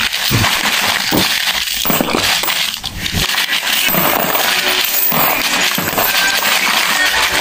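Coins rattling inside a hollow plastic piggy bank and clinking as they are shaken out and drop onto a pile of coins in a cardboard box: a continuous, irregular clatter.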